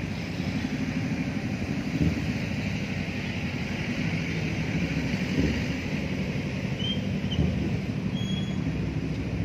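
Steady outdoor rumble of city traffic, with wind buffeting the phone's microphone. A few faint high chirps come near the end.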